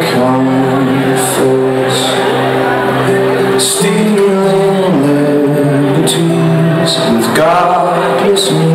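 Live band playing a song's instrumental passage, with sustained chords that shift every second or so and short bright hits from cymbals or similar percussion.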